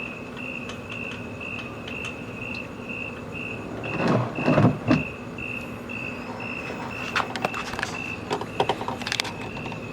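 A short rush of splashing water as the pump's pre-filter is rinsed, about four seconds in, then a scatter of clicks and knocks from the plastic filter parts being handled. Under it all, a steady high chirp repeats about three times a second.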